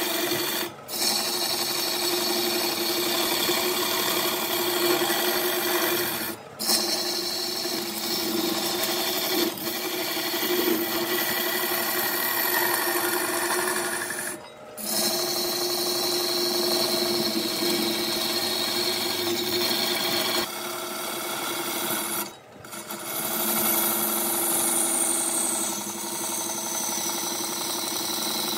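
Wood lathe running while a turning tool cuts the spinning wood: a steady hum under a dense scraping hiss, broken by four short gaps.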